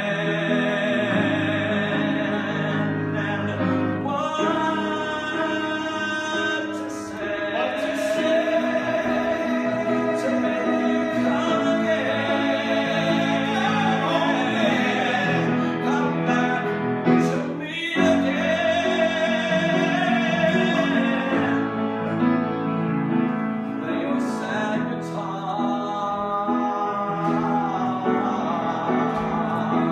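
A singer performing with instrumental accompaniment, holding long notes with vibrato.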